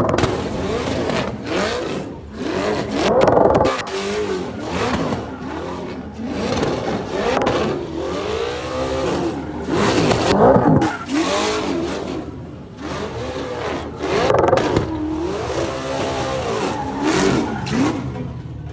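Car engines revving hard again and again, the pitch climbing and dropping every second or two.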